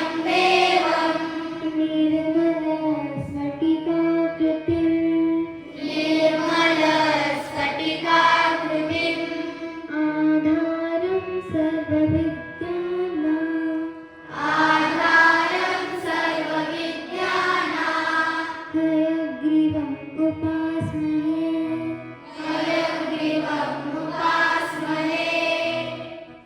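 Children's voices singing together to music in long held phrases, with a steady sustained tone underneath.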